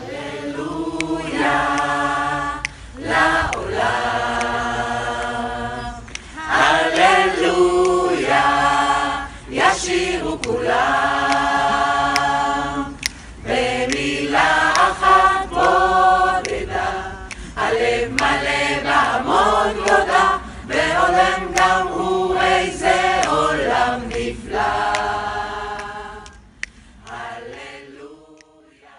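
Mixed choir of men and women singing a cappella in phrases of held notes, dying away near the end.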